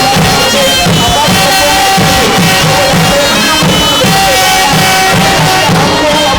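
Music with a steady drum beat under held melody notes.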